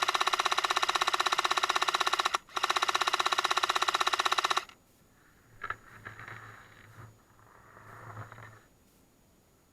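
Airsoft electric M60 firing long full-auto bursts: a rapid, even mechanical buzz from the gearbox cycling. It breaks off briefly about two seconds in, then stops for good about four and a half seconds in. Fainter, muffled sounds follow for a few seconds.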